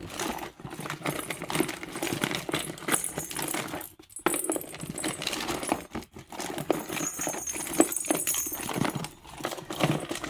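Small hard plastic toys being handled, clicking, knocking and rattling irregularly. A high-pitched chorus of tree frogs comes and goes behind it.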